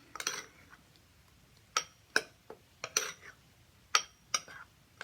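A utensil clinking against a dish, about six light, separate knocks with a short ring, at uneven intervals.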